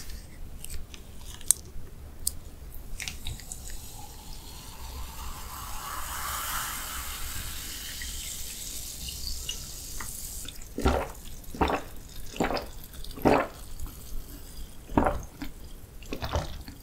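A few handling clicks, then sparkling water poured from a bottle into a glass, fizzing, the pour rising in pitch as the glass fills. Then about six gulps as it is drunk.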